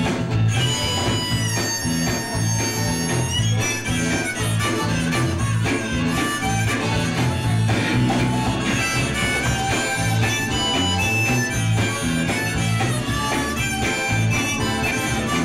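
Live blues-rock band playing an instrumental passage: electric guitar, bass and drums keeping a steady pulsing beat under held lead lines, on a slightly distorted recording taken from old VHS tape.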